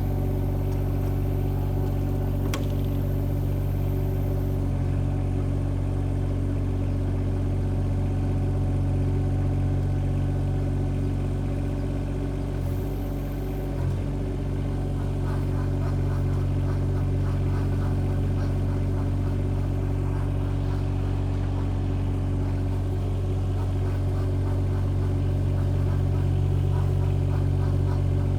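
Compact track excavator's engine running steadily while the machine travels in its low-speed, high-torque travel mode, with the hydraulic travel motors at full displacement.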